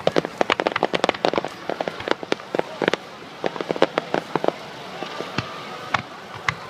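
Fireworks crackling: a dense run of many rapid sharp pops, thinning out to scattered pops after about four and a half seconds.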